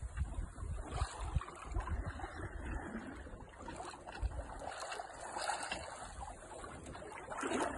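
Sailboat moving under sail: water rushing and splashing along the hull, with gusts of wind buffeting the microphone in irregular low rumbles.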